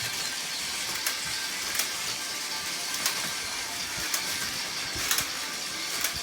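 Battery-powered Plarail toy trains running on plastic track: a steady whirring hiss of small motors, with sharp clicks about once a second.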